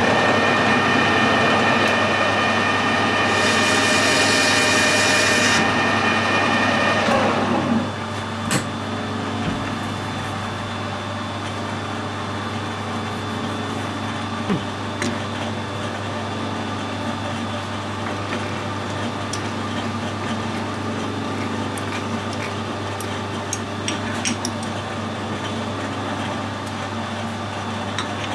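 Metal lathe running while a carbide tool turns 303 stainless steel, with a hiss from the cut for a couple of seconds in the middle. The spindle winds down about eight seconds in, leaving a steady low hum with scattered clicks and knocks as the workpiece is handled in the chuck.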